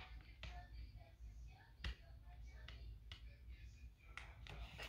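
Near silence with faint rustling and a few soft ticks of paperback book pages being handled and turned, the clearest tick about two seconds in.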